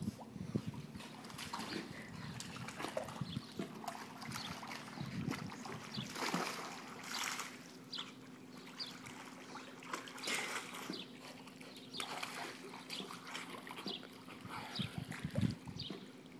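Pool water splashing and sloshing irregularly as a dog paddles and is held by a man wading in the pool, over a faint steady low hum.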